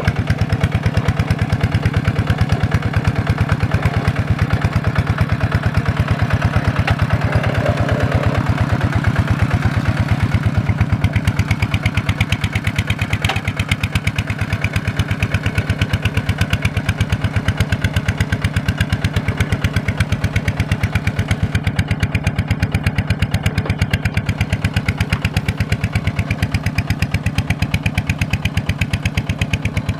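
Diesel engine of a Kubota farm machine running steadily, its firing strokes heard as an even, rapid beat.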